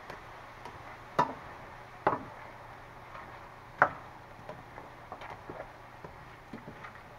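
Black plastic spoon knocking and scraping against a stainless steel skillet while stirring shrimp and vegetables, with three sharper knocks, about a second in, two seconds in and the loudest near four seconds, between softer ticks.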